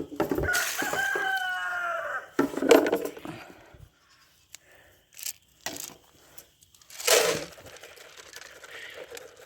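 A rooster crowing once, a long call that falls slowly in pitch, followed by a few short rustling or thumping noises.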